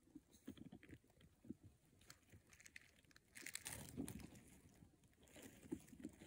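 Short-beaked echidnas shuffling and scraping in dry soil and grit, a faint scratchy crunching with a louder burst of rustling about three and a half seconds in.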